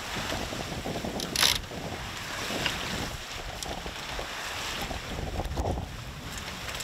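Wind buffeting the microphone and water washing past the hull of a sailboat under way, with a single sharp clack about one and a half seconds in.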